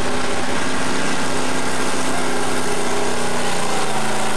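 Chevrolet pickup's engine running at high, steady revs as it pulls a weight-transfer sled in a four-wheel-drive truck pull, its pitch holding fairly even.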